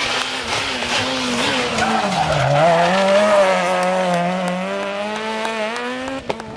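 Rally car engine running hard, its revs dipping briefly about two seconds in and then holding steady, with tyres skidding.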